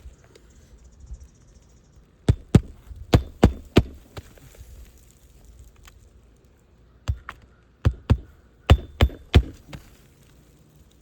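Hammer strikes driving roofing nails into a replacement asphalt shingle: two runs of sharp blows, about five and then six, roughly three a second.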